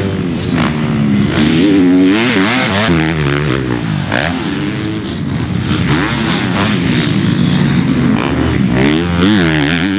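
Motocross dirt bike engine revving hard, its pitch climbing and dropping again and again as the throttle opens and closes.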